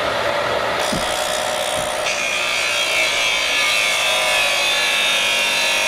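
Power chop saw cutting through steel angle: a continuous grinding noise, with a shrill high-pitched whine of the blade in the metal joining about two seconds in.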